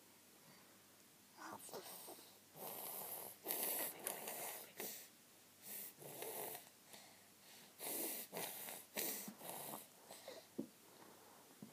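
A baby sniffing and breathing noisily through a snotty nose: a string of irregular snuffly sniffs and breaths, starting about a second and a half in.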